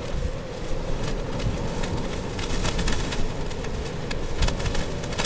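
Strong storm wind buffeting the microphone: a loud, steady rumbling rush, with scattered quick ticks from about a second in.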